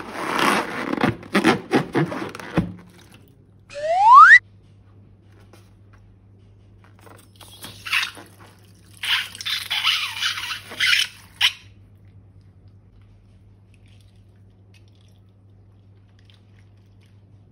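Sticky slime squishing and crackling as it is handled, with one short, loud rising squeak about four seconds in and two more bursts of crackly squishing later. A low steady hum remains in the quiet stretch near the end.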